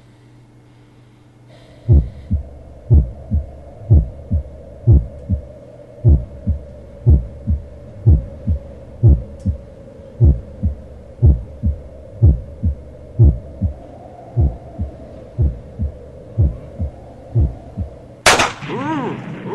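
Heartbeat sound effect: a slow lub-dub about once a second over a steady hum, starting about two seconds in. Near the end a sudden loud gunshot-like bang, followed by a wavering ringing.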